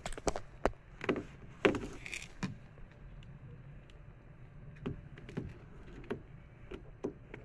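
A string of light clicks and knocks as a hand handles a plastic power bank and its charging cable on a train's window ledge, thickest in the first two seconds and again near the end. Under them is a steady low hum of the train carriage.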